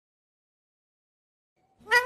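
Silence, until near the end a rose-ringed parakeet starts a high-pitched vocalisation that rises in pitch.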